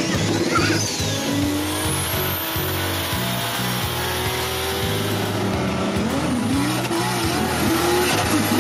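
Car engine sound effect revving, its pitch gliding upward, over background music.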